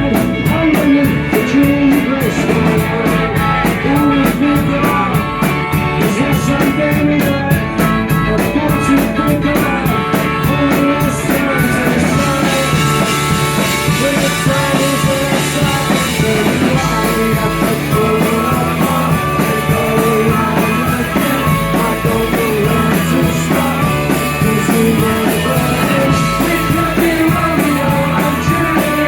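A rock band playing live, with guitars, drums and singing. A fast, even cymbal beat runs through the first part and drops out about twelve seconds in.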